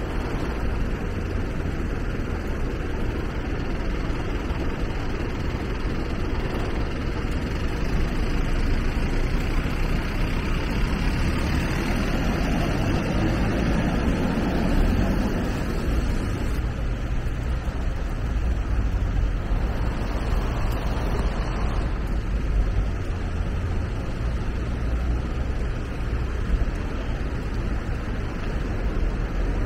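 Steady city street noise of vehicle engines running, low and rumbling, with a louder swell midway that fades after a few seconds.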